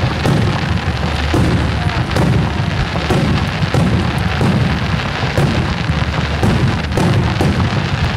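Starmine fireworks display: shells launching and bursting in quick succession, about two sharp bangs a second over a continuous low rumble, with music playing underneath.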